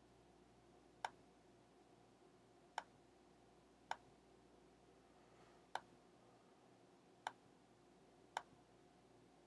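Six single clicks of a computer mouse button, spaced unevenly a second or two apart, over a faint steady room hum.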